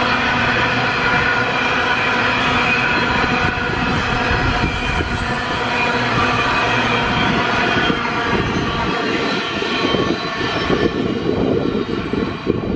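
Freight wagons rolling past at speed: steady wheel-on-rail rumble and clatter, with a whine of several high steady tones over it that thins out as the last wagons go by. Wind buffets the microphone near the end.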